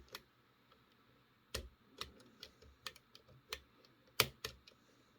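Faint, irregular metallic clicks and taps of a cut-down key blank pick working the brass levers inside a Squire 660 lever padlock while an Allen key holds heavy tension on the bolt. About eight separate clicks spread over a few seconds, the sharpest about four seconds in.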